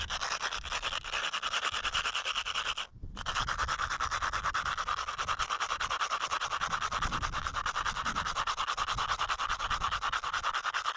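A piece of asphalt shingle scraped rapidly back and forth against an asphalt shingle roof in quick, even strokes, grinding off granules to make a coating for a patch; it stops briefly about three seconds in.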